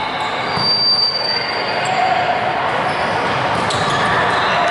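Volleyballs being hit and bouncing on a hardwood gym floor, with indistinct voices echoing around a large hall and a short high squeak about a second in.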